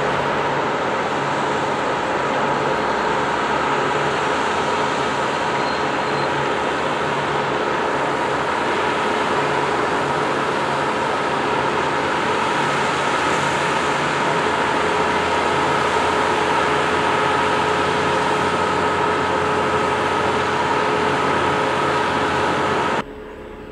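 Heavy demolition machinery running steadily: a constant mechanical drone with a steady whine over a low rumble. It cuts off abruptly about a second before the end.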